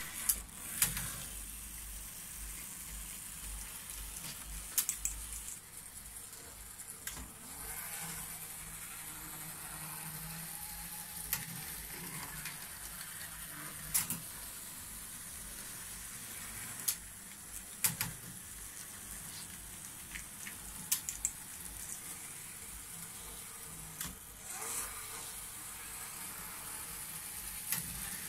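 Model railway train, a small steam locomotive pulling coaches, running on the layout's track: a faint steady hiss with a low hum, broken by a sharp click every few seconds.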